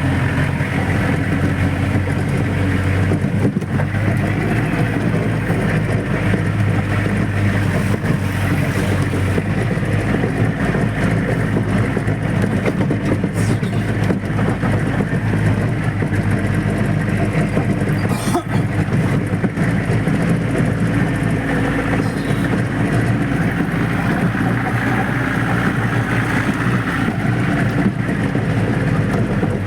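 Off-road jeep driving along a rough forest track, heard from inside the vehicle: a steady engine drone with tyre and body noise, and a few knocks from bumps about 3, 13 and 18 seconds in.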